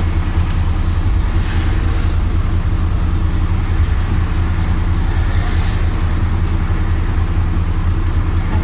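Volvo B9TL double-decker bus's six-cylinder diesel idling while the bus stands still, a steady low rumble heard inside the passenger saloon.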